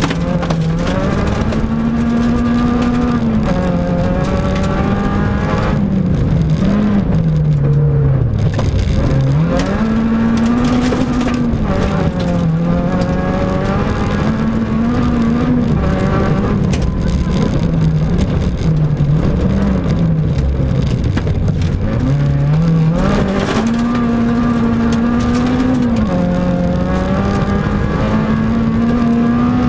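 Peugeot 106 rally car's engine heard from inside the cockpit at full stage pace, revving up through the gears with sharp drops at each shift and falling lower under braking for corners, over the constant rumble of gravel under the car.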